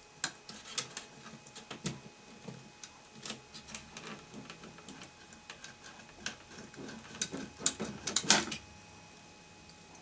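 Hands working circuit boards loose inside an opened flat-screen TV: irregular clicks, taps and scrapes of board edges and plastic connectors, with a denser, louder clatter from about seven to eight and a half seconds in as the backlight board comes free.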